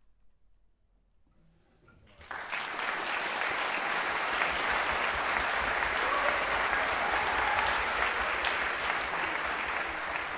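About two seconds of near silence, then audience applause breaks out suddenly and carries on steadily.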